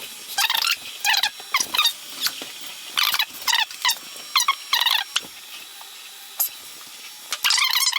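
Stepper motors of a CR-30 belt 3D printer whining in short, irregular bursts of squeaky, changing pitch as the print head and belt move.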